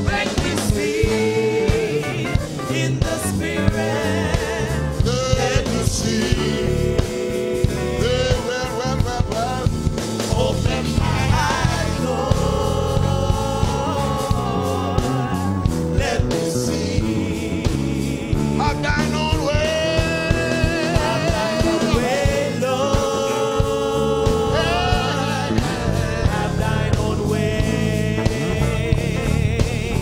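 Gospel music with singing voices over a steady beat.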